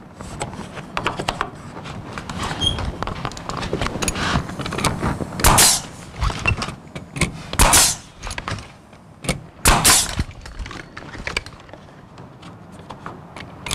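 Pneumatic nail gun firing nails through skirting board into the wall frame: three loud sharp shots, each with a short hiss of air, about two seconds apart. Lighter clicks and knocks of the board being handled and positioned come before and between them.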